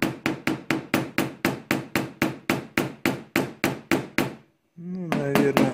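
A paintless dent repair hammer tapping rapidly and evenly, about five light strikes a second. The tapping stops briefly a little after four seconds and then resumes.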